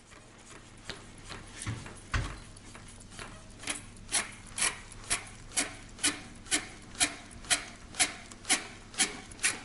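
Hand fuel priming pump on a diesel engine being worked in repeated strokes, each a short rubbing squeak, settling into about two strokes a second and growing louder a few seconds in. The pumping bleeds the last air out of the fuel system before a start.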